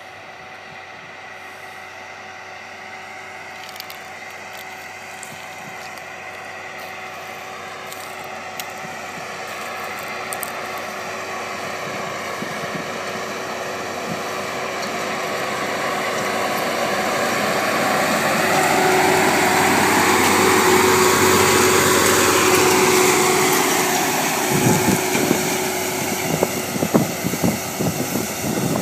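Farm tractor pulling a Carre Pentasem tine seeder drill across tilled soil: the engine grows steadily louder as it approaches, is loudest about two-thirds of the way through, and drops in pitch as it passes. In the last few seconds the drill's tines and press wheels clatter and knock over the ground, over a steady hum.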